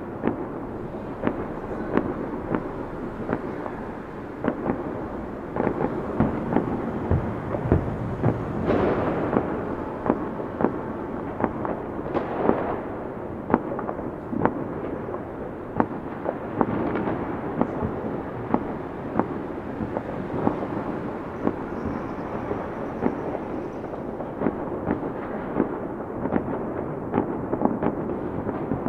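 A fireworks display going off without a break: many overlapping bangs, several a second, over a steady bed of crackling and distant booms. A couple of bigger bursts trail off into crackle about a third of the way in.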